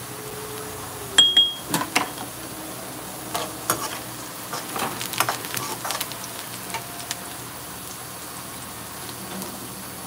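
Chopped onions sizzling in oil in a frying pan, with a steady hiss. A metal slotted spoon stirs them, scraping and clinking against the pan between about one and seven seconds in, loudest just over a second in.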